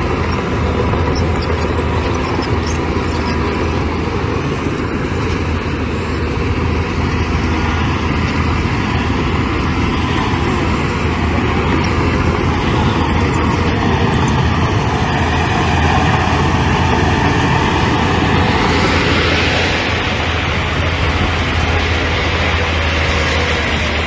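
Bulldozer's diesel engine running steadily under load with a deep, continuous drone, growing a little louder and harsher about three-quarters of the way through.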